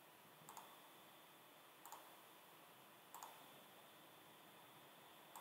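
Four faint computer mouse clicks, roughly one and a half seconds apart, over a near-silent room hiss.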